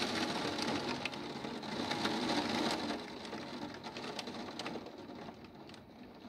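Rain and wind during a thunderstorm, with many sharp ticks of drops hitting a surface; the sound grows fainter after about three seconds.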